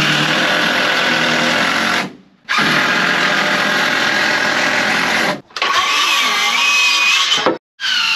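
Cordless DeWalt drill driving screws into wooden boards, in four runs of about two to three seconds that start and stop abruptly with short pauses between.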